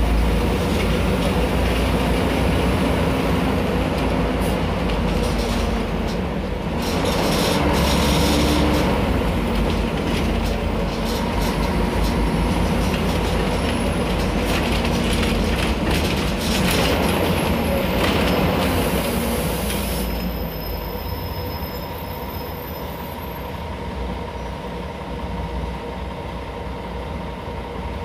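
Ride noise inside a Mercedes-Benz O500UA articulated city bus with a Caio Mondego HA body: the engine runs with its pitch rising and falling, under steady road noise and rattling from the body. It grows quieter and steadier about twenty seconds in.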